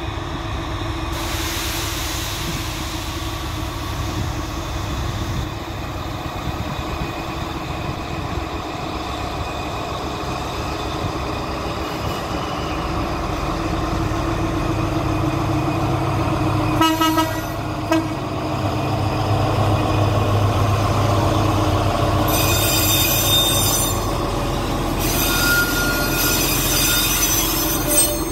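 A diesel locomotive hauling a freight train pulls away and passes by, its engine rumbling steadily and growing louder about halfway through. The freight wagons then roll past, with wheel clicks over the rail joints and high-pitched wheel squeal in the last few seconds.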